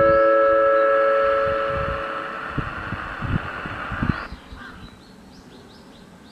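The last chord of a disaster-prevention radio chime from a Toshiba chime unit, played over outdoor public-address loudspeakers, ringing out and fading: the lower tones die away about two seconds in and the higher ones a couple of seconds later. Faint bird chirps follow.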